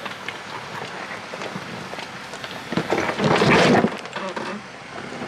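Jeep Wrangler's rear end striking rock with a loud scraping crunch lasting about a second, about three seconds in; the hit leaves a bend in the license plate.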